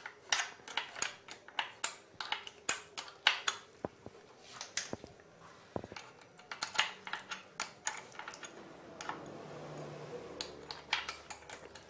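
Irregular metallic clicks and clinks, about two or three a second, from a spanner working the chain adjuster bolts on a motorcycle swingarm. A softer steady rustle comes in for a couple of seconds after the middle.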